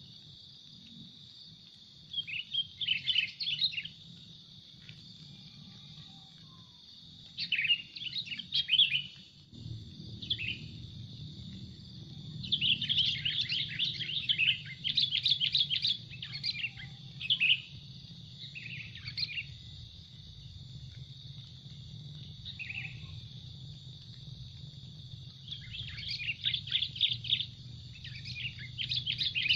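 Sooty-headed bulbuls (kutilang) calling in bursts of quick chattering chirps, each spell lasting a second or two and coming several times, with a longer run of calls near the end. A steady high insect drone runs underneath.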